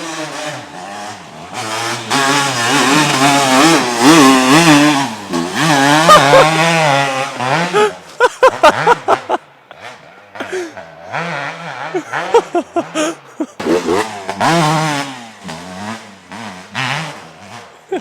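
Kawasaki KX250 dirt bike's two-stroke single-cylinder engine revving hard under a rider, its pitch climbing and falling repeatedly. About halfway through come a few short, sharp throttle blips, then the engine drops back before pulling again for several seconds near the end.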